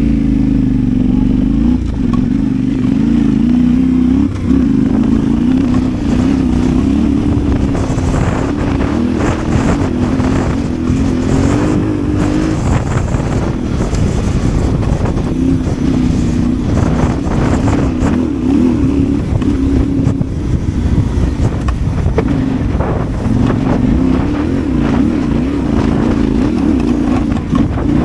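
Yamaha Ténéré 700's parallel-twin engine pulling at low revs over a rough, holed trail, its note rising and falling with the throttle. Knocks and rattles from the bike come through as it hits the holes, thickest in the middle of the stretch.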